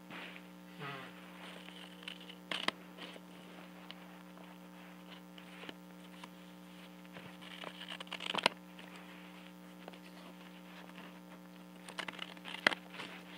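Scissors cutting a sheet of paper: a few separate snips with paper rustling, sharp clicks about two and a half seconds in and about eight seconds in, and a cluster near the end, over a steady electrical hum.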